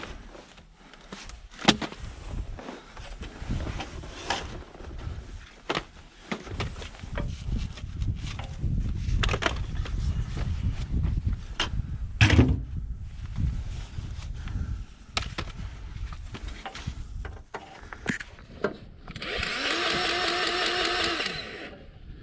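Scattered clicks and metal knocks of hand work on a snowblower over a low rumble. About three-quarters of the way in, a harsh, even mechanical buzz runs for about two seconds, then cuts off.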